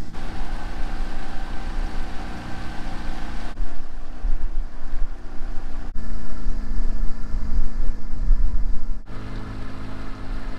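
A boat's gasoline motor running steadily under way, with wind rumbling on the microphone and water washing past. The sound jumps abruptly three times.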